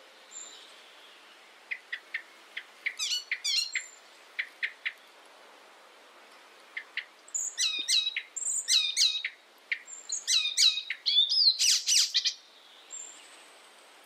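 Icterine warbler singing: two bursts of fast, varied song made of repeated high notes and quick downward-sweeping phrases, the second burst longer and fuller, ending in a dense, harsh run of notes just after the middle.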